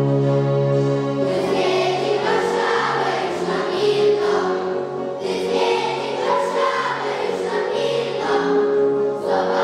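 Children's choir singing with instrumental accompaniment. A held chord of the accompaniment opens, and the voices come in about a second in.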